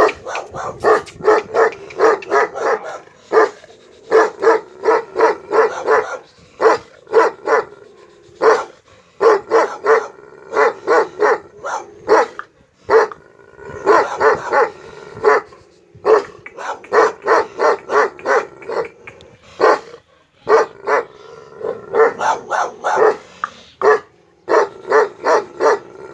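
A dog barking in quick runs of short barks, about three or four a second, broken by brief pauses.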